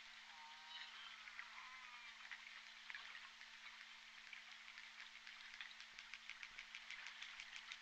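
Southern resident killer whales (J pod) heard faintly through an underwater hydrophone: two calls with bending, sliding pitch in the first two seconds, then a train of rapid clicks from about five seconds in that grows denser near the end, over a steady hiss of water noise and a low steady hum.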